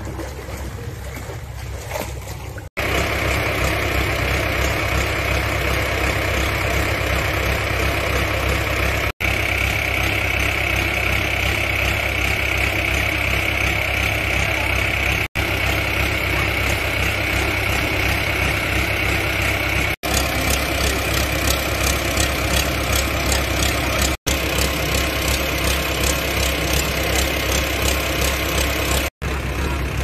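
Floodwater washing over a walkway for the first few seconds. Then a trailer-mounted engine-driven water pump runs steadily with a constant hum, pumping floodwater back out to the river. The sound drops out for an instant several times.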